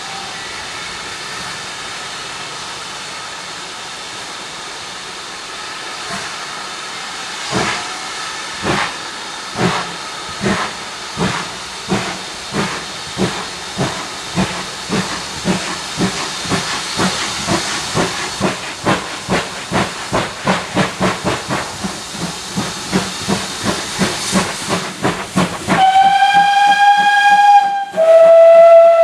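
Steam locomotive getting a train under way: a steady hiss of steam, then from about 7 s in the exhaust beats start, slow at first and gradually quickening. Near the end the whistle sounds twice, loudly, with the second blast lower in pitch.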